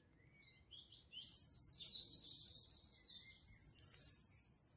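Small songbirds chirping and calling, with a faint high hiss that sets in about a second in.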